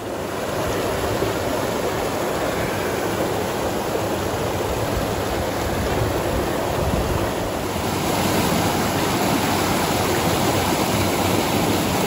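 Water rushing down a small rock cascade into a pool close by, a steady dense rush that turns brighter and hissier about eight seconds in.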